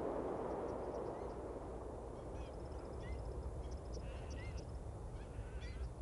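Wetland ambience: a steady low rush with many short, high bird calls, each a quick rise and fall, scattered through it from a flock of birds.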